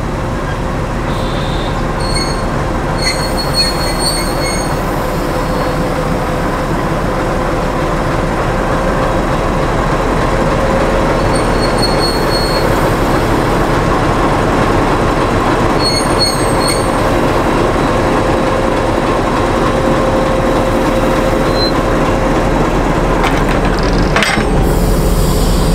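YDM-4 metre-gauge diesel locomotive running steadily as it moves slowly up to couple onto the train, with brief high wheel squeals now and then. A sharp knock near the end as it couples on.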